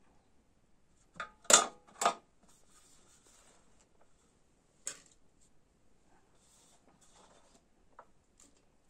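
A paring knife and a peeled potato set down on a large metal tray: three sharp clatters with a brief metallic ring, about a second and a half in. Then soft rustling and a few light taps as potato peels are gathered off the tray by hand and dropped into a small pot.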